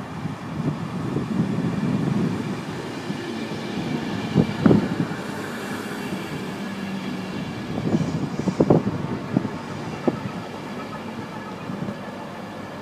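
Virgin East Coast InterCity 225 Mark 4 coaches rolling past close by: a steady rumble of wheels on rail with faint high tones. A few sharp clicks and knocks come from the wheels on the track, the loudest about halfway through and near the end.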